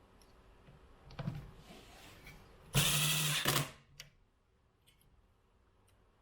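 Cordless power driver running for about a second, driving a screw back into the soundbar's case, after a few quieter handling clicks.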